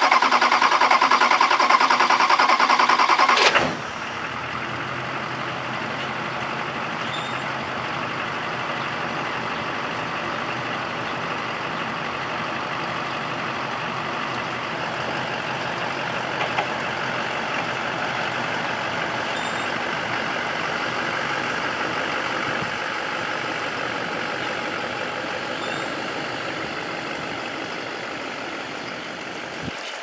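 Duramax V8 turbodiesel in a Chevrolet Silverado running, with coolant contaminating its oil. For the first three and a half seconds a louder rhythmic mechanical whirr sits over it and cuts off sharply, leaving the steady diesel running, which fades a little near the end as the truck pulls away.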